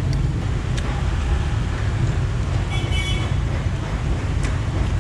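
Steady street traffic rumble, with a short high horn-like tone about three seconds in and a few light clicks.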